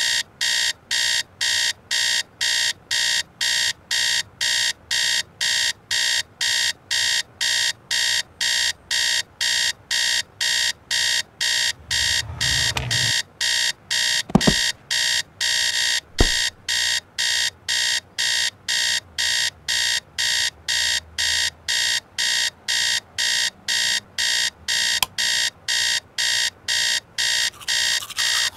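Mobile phone alarm beeping, a high electronic beep repeating about twice a second without a break. Two sharp clicks come about halfway through.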